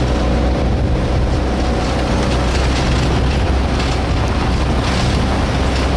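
Car driving along a gravel mountain road: a steady low engine and tyre rumble with road and wind noise.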